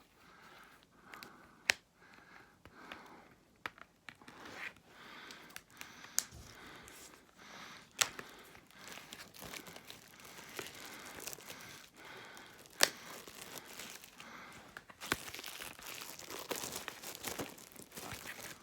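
Plastic packaging being torn and crinkled as a DVD is unwrapped by hand, with a few sharp clicks along the way and a burst of denser crinkling near the end.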